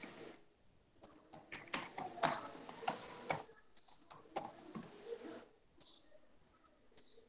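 Faint, irregular clicks like keystrokes on a computer keyboard, with a few short high chirps in between.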